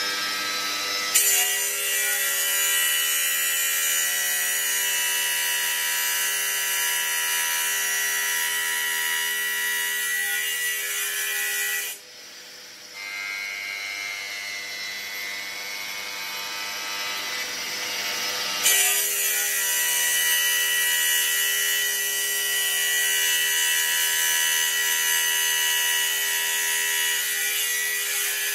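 Water-cooled stone bridge saw, its diamond blade cutting a strip of granite: a steady motor whine with a harsh grinding hiss. The sound drops away about twelve seconds in, stays quieter for about six seconds, then comes back at full strength as the blade cuts again.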